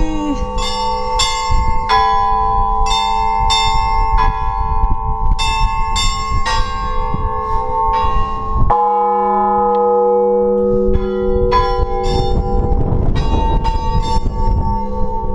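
Russian Orthodox church bells rung by hand in the belfry: quick, irregular strikes on the small high bells over the long ringing tones of larger bells. A little past the middle the small bells stop for about three seconds while a lower bell's fresh strike rings on, then the quick strikes start again.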